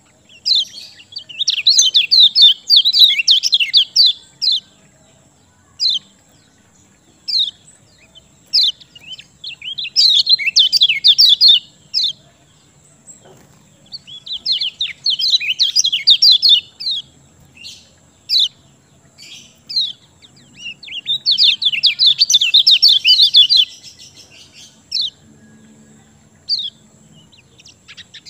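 Kecial kuning white-eye singing in full, busy song (gacor): four long bursts of rapid, high chirping of a few seconds each, with single sharp chirps between them.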